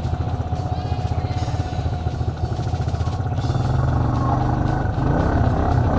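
Honda Big Red ATV engine running close by as it climbs a steep trail, getting louder about three and a half seconds in as it works harder.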